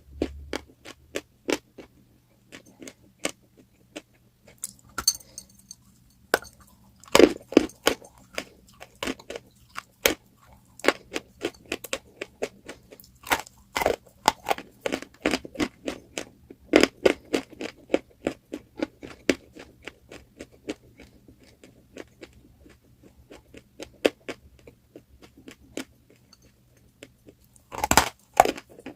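Pieces of crunchy chalk being bitten and chewed: a long run of irregular sharp crunches, with a dense burst of crunching near the end.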